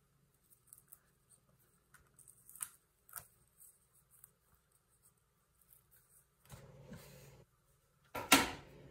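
Plastic cling wrap crackling and rustling as gloved hands smooth it over a soap mold, in scattered short crinkles with a longer rustle later on and a sudden loud, sharp rustle near the end.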